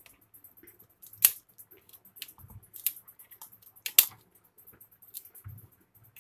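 Automatic wire stripper's cutting jaw snipping through thin insulated copper wire: a few sharp snips, the loudest about four seconds in.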